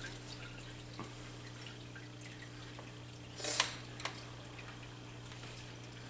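Axolotl aquarium equipment humming steadily, with faint water drips and light clicks. A brief, louder rush of noise comes about three and a half seconds in.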